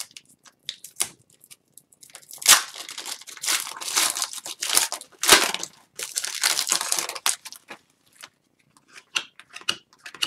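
An Upper Deck hockey card pack being torn open by hand, its wrapper crinkling and crackling, with a few sharp cracks in the middle. Near the end come only light ticks as the cards are handled.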